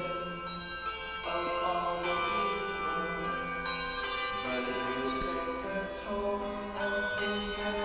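Handbells played as a tune, several pitched notes struck one after another and ringing on over each other.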